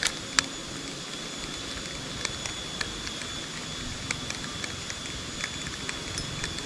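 A steady, high-pitched insect buzz with scattered sharp clicks and crackles a few times a second.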